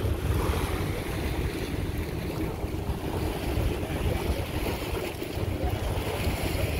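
Wind buffeting the microphone, a rough rumble that flutters unevenly, over a steady wash of choppy water.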